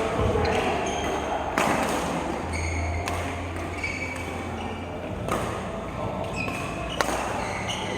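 Billiard balls clicking: a sharp click about a second and a half in and a louder, sharper click near the end, over steady hall background noise.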